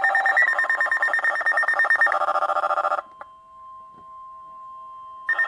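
Weather alert radio alarm sounding, a loud rapid pulsing electronic beep. It cuts out about three seconds in, leaving a faint steady warning tone of about 1050 Hz, then comes back loud near the end.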